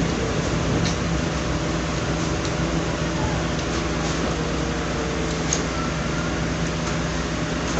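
Steady background hum and hiss, like an electric fan or air conditioner running, with a few faint soft clicks.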